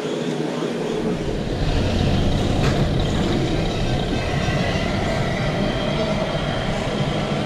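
Radio-controlled scale model trucks running, a steady low rumble with a faint whine, over a murmur of people.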